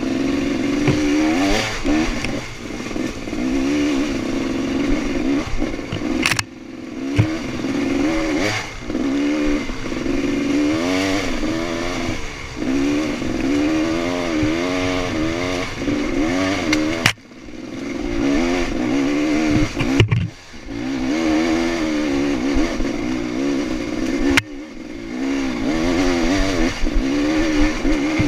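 Dirt bike engine revving up and down as it is ridden along a rough trail, its pitch rising and falling every second or so with the throttle. The sound drops sharply for a moment four times.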